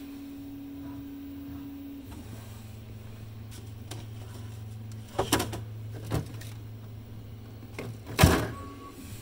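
Plastic 3D printer filament spools knocking and clattering as they are turned and shifted by hand on a rack rod: a few knocks in the second half, the loudest near the end. Under it a steady low hum drops in pitch about two seconds in.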